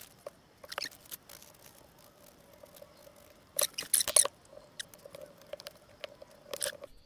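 Small scraping and clicking sounds, on and off, from working a homemade wood filler of glue and sawdust into holes in a wooden handle. The loudest run of scrapes comes about three and a half seconds in, with another near the end.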